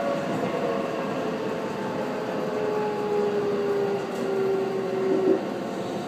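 Keihan electric train running, heard from inside the car: a steady rumble of wheels on rail under a motor whine that falls slowly in pitch as the train slows for the station. The whine stops abruptly about five seconds in.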